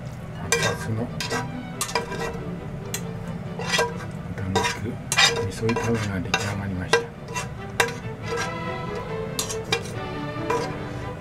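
Slotted metal turner scraping and knocking against a frying pan as a pork and cilantro stir-fry is pushed off onto a plate, with a run of sharp clicks scattered throughout. The hot pan sizzles underneath.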